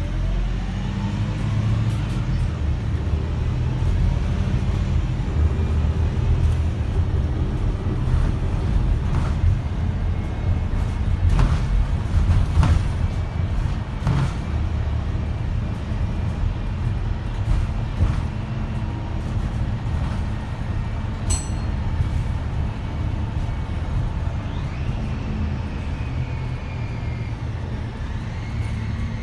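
Interior sound of a Wright StreetLite single-deck bus with a Mercedes-Benz OM934 four-cylinder diesel, driving: a steady low engine and road rumble. A rising whine as it pulls away from the stop at the start, and a few sharp knocks and rattles from the body about halfway through.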